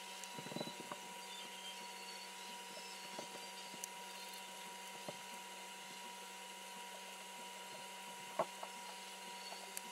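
A heated stippling tip being pressed into a polymer pistol grip: light scattered taps and clicks, a short cluster near the start and a sharper click about eight seconds in, over a faint steady electrical hum.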